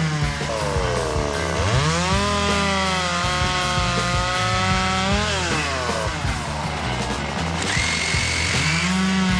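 Two-stroke chainsaw running at high revs while cutting wood, its engine pitch rising about two seconds in, holding, dropping after about five seconds, then rising again near the end.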